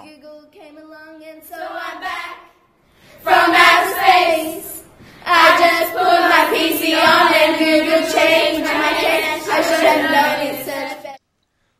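A girl singing solo: softly for the first couple of seconds, then much louder from about three seconds in, with wavering held notes, stopping abruptly near the end.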